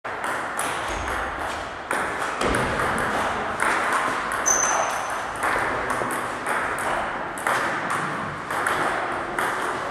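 Table tennis ball clicking back and forth against the bats and the table during rallies, a quick irregular string of sharp ticks.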